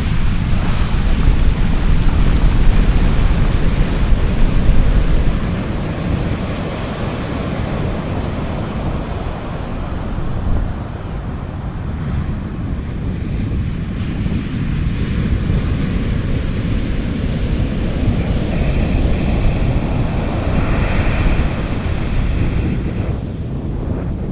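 Sea waves breaking and washing up a beach, a steady surging hiss over a deep low rumble. It is loudest for the first few seconds, eases off, then swells again with another wave near the end.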